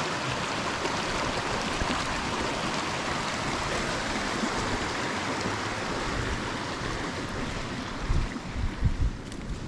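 Shallow mountain stream rushing over rocks and ice, a steady hiss of running water that fades in the last couple of seconds. Near the end, a few low thumps rise above it.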